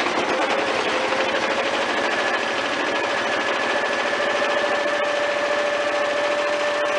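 Garden tractor engine running with the Ford 50-inch mower deck engaged, a steady mechanical clatter with a whine that rises slightly in pitch over the first few seconds.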